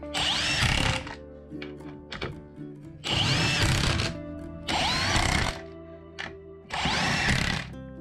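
Cordless power driver with a socket running four times in short pulls of about a second each, driving bolts into 2x4 lumber; the motor whine rises at the start of each pull and falls as it stops. Music plays underneath.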